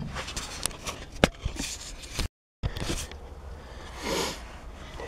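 Handling and movement noise in a tractor cab: rustles, light scrapes and scattered clicks over a low steady rumble. The sound drops to complete silence for a moment a little over two seconds in, where the recording cuts.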